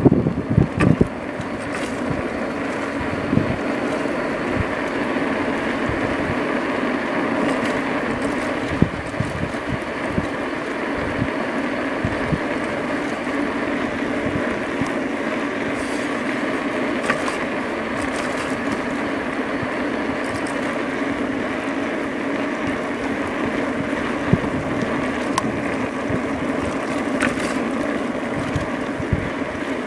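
A2B Metro electric bike under way: a steady running hum with tyre and road noise, and a few small clicks and knocks.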